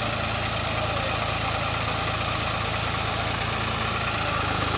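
Swaraj 855 and New Holland tractors' diesel engines idling steadily.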